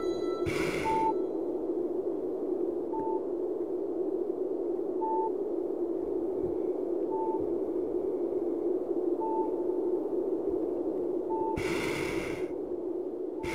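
A steady hum with a short, high beep that repeats at the same pitch about every two seconds. Two brief hissing swells come about a second in and near the end.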